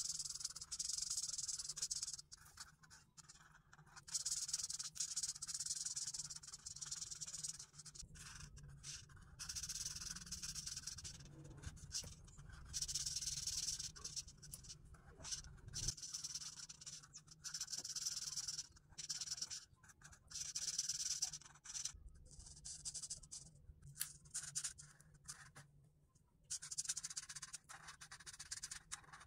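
Marker pen scratching back and forth on paper while colouring in, in runs of quick strokes of a second or two each with short pauses between them.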